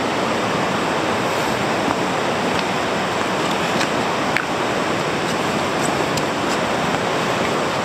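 Steady rush of white-water river rapids, with a few faint ticks over it.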